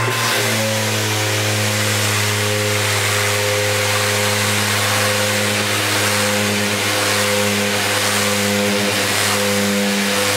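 Milwaukee M18 cordless random orbit sander running on speed setting 2 of 6 while sanding plywood. Its motor hums at a steady pitch under the hiss of sandpaper on wood.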